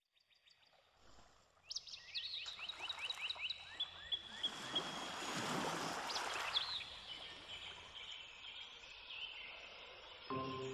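A songbird singing a rapid series of high, quick, repeated chirping notes, followed by a rushing noise that swells and fades around the middle. Soft music with bell-like tones begins near the end.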